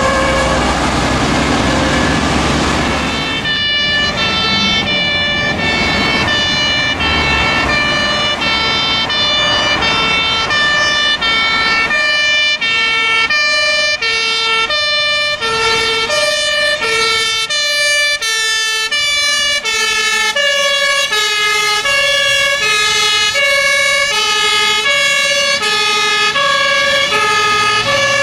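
German fire engines' two-tone compressed-air horns sounding the alternating 'tatü-tata' call, the pitch switching about every half second. For the first three seconds a truck engine and a steady horn blast are loudest. From about halfway through, two horns sound at once out of step with each other.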